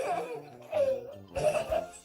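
Background music, with short wailing calls that bend down and up in pitch, one about a second in and another near the end.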